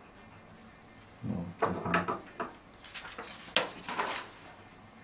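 A short run of handling knocks and clicks, as of small objects being picked up and set down, starting about a second in. The sharpest click comes about three and a half seconds in.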